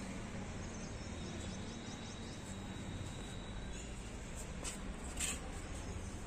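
Faint outdoor background noise with a steady low hum and a quick run of faint high bird chirps; a brief hiss about five seconds in.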